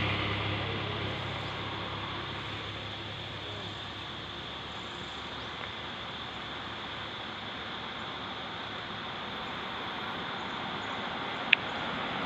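A passing vehicle's engine fading away, leaving steady outdoor background noise, with one sharp click about eleven and a half seconds in.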